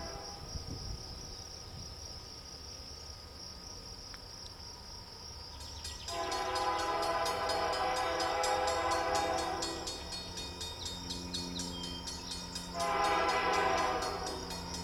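Canadian Pacific freight locomotive's air horn sounding from an approaching train: a long blast starting about six seconds in and lasting about four seconds, then a short blast near the end. This long-then-short pattern is typical of the horn sequence for a grade crossing.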